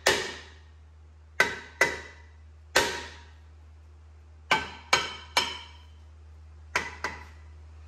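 Hammer blows on a Kia Sportage rear brake rotor to shock it loose from the hub. About nine sharp metallic strikes come at uneven spacing, several in quick pairs, and each rings briefly.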